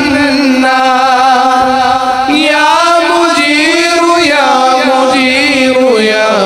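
A man's voice chanting an Arabic devotional nasheed, drawing out long held notes that bend and glide in pitch.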